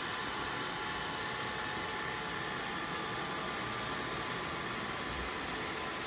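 iRobot Roomba 671 robot vacuum running steadily as it drives back onto its charging dock, a constant motor hum and whir with a faint steady whine.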